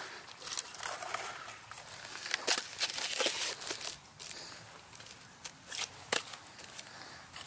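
Hands digging into and scraping loose, dry soil while setting pansies into the bed: scattered rustling and crackling, thickest about halfway through.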